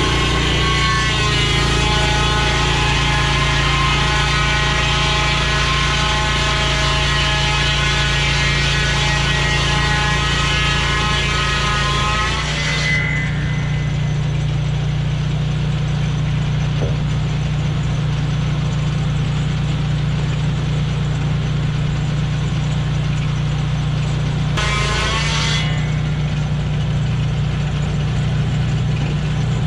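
Lucas swing-blade sawmill's petrol engine and circular saw running as the blade cuts along a blackbutt log. A whine of many tones over a low engine drone fills the first half, then drops away about halfway, leaving a steady low drone. The whine comes back briefly near the end.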